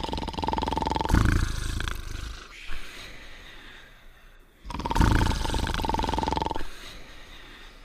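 Cartoon snoring: two snore cycles about four seconds apart, each a low rumbling snore together with a steady whistling tone.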